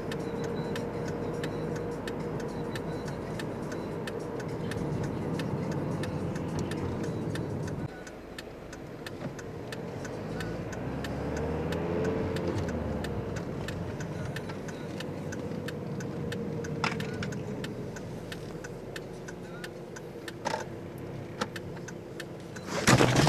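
Car engine and road noise heard inside the cabin, with the turn indicator ticking steadily as the car turns left at a junction. The engine note drops about eight seconds in, and a brief louder noise comes at the very end.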